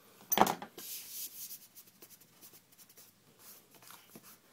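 A short loud rush of noise about half a second in, then a hand rubbing and wiping across a MacBook Pro's aluminium lid in its cardboard box, with soft rubbing and light scrapes.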